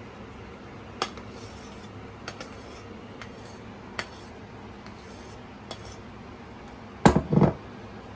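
A kitchen utensil clinking against dishes with a few scattered light clicks as mashed potato is spooned onto a pie filling, then a louder clatter of two or three knocks near the end.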